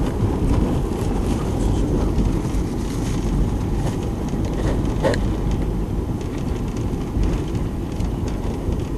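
Steady low road and engine noise heard inside a moving vehicle's cab.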